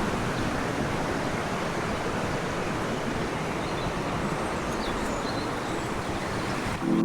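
Steady rushing noise of sea waves and wind, even throughout; music with a keyboard tone comes in right at the end.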